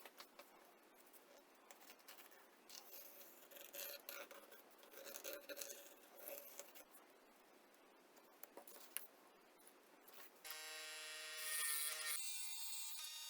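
Light scraping and handling noises with scattered clicks, then a small electric motor starts about ten seconds in and runs with a steady whine, changing pitch once shortly after.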